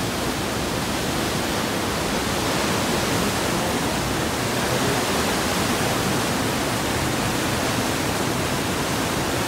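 Mountain river running fast over boulders in whitewater rapids: a steady, even rush of water.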